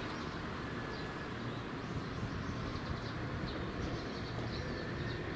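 Outdoor shoreline ambience: a steady low rumble with faint bird chirps scattered throughout.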